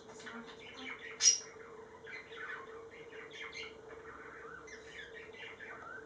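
Budgerigars chattering and warbling in quick, busy notes while cuddling beak to beak, with one loud, sharp chirp about a second in. A faint steady hum runs underneath.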